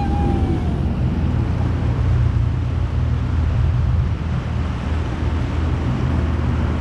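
Jet ski engine running steadily with a low drone, with water rushing under the hull and wind buffeting the microphone.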